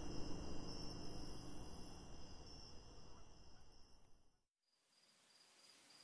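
Background nature ambience of crickets and insects chirring steadily, with low noise underneath. It fades out to silence about four and a half seconds in, then a fainter insect ambience fades back in.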